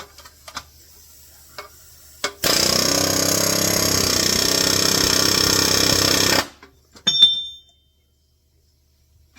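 Ingersoll Rand pneumatic air hammer rapidly hammering a rivet for about four seconds, smashing it over on the back side. A few light taps come before it, and a short metallic clank that rings briefly comes after it.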